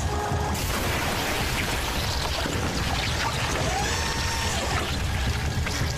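Cartoon sound effect of a steady, dense, watery rushing and bubbling, with faint gliding tones, as an alien creature's slime-covered pod stirs awake.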